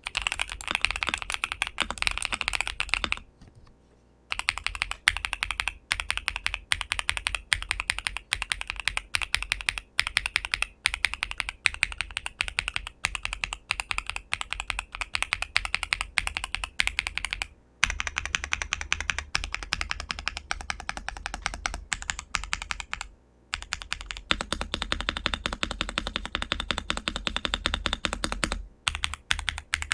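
Fast, continuous typing on an ASUS ROG Azoth mechanical keyboard fitted with a PC plate, foam and PET film dampening layers, and LEOBOG Graywood v4 linear switches. The keystrokes run in a dense stream, with a pause of about a second a little after three seconds in and a few brief breaks later.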